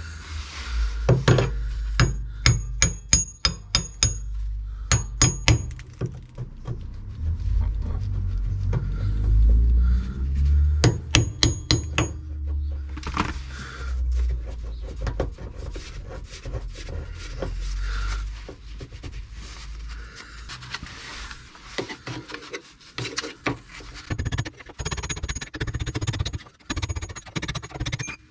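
A claw hammer strikes the steel eye bolt of a van's rear leaf spring, driving it out. Two quick runs of ringing metal blows come in the first half, then lighter knocks and scraping as the bolt is worked loose.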